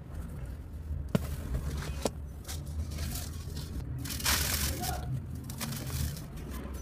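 Dry, dusty cement chunks snapping and crumbling, played at double speed: two sharp snaps in the first two seconds, then a longer crunch about four seconds in, over a steady low hum.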